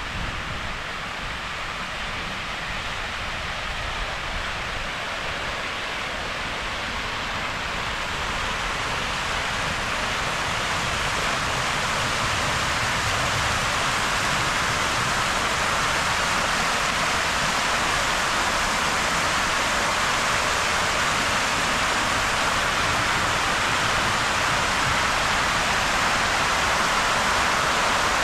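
Many vertical water jets of a large park fountain splashing down into a shallow basin: a steady rushing hiss that grows gradually louder as the fountain gets closer.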